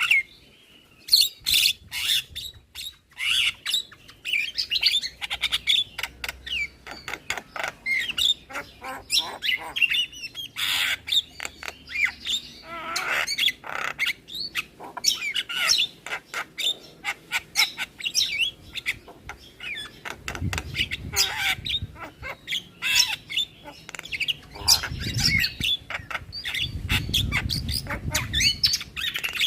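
Javan myna (jalak kebo) singing a fast, varied song of clicks, harsh squawks and short whistles: a lure recording of the kind played to get other starlings singing. A few low rumbles sound under the song in the second half.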